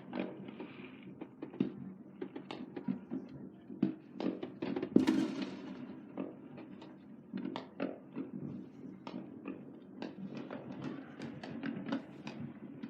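Fireworks and firecrackers going off: an irregular string of sharp pops and bangs, the loudest about five seconds in.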